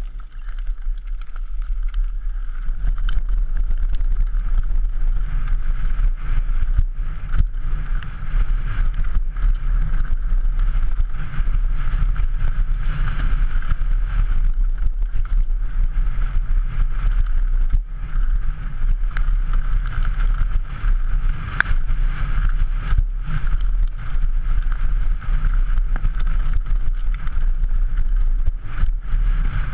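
Wind rushing over a helmet camera and the rattle of a downhill mountain bike running over a rough, stony track, with many sharp clicks and knocks. It gets louder about two seconds in as the bike picks up speed.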